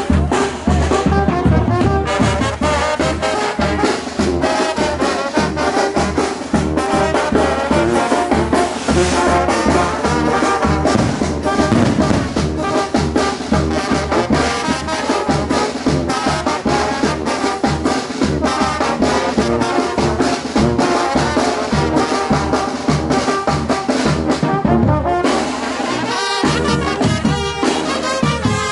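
Mexican banda, a brass band of trumpets, trombones and tuba, playing dance music over a steady beat.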